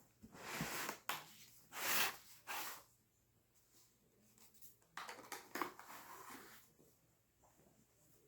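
Packaging being handled during a laptop unboxing: rustling and scraping in several short bursts, the loudest about two seconds in, with a quiet pause in the middle.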